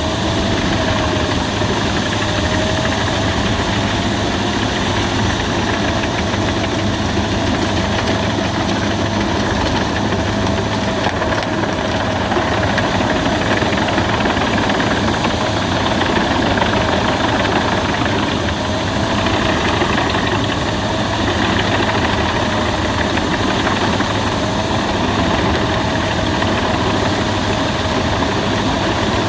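Albach Diamant 2000 wood chipper running steadily at a constant, loud level, with a faint wavering whine above the machine noise.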